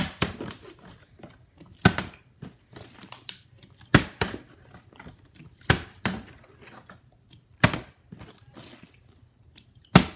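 Plastic water bottle being flipped and landing on a wooden floor, a sharp knock about every two seconds.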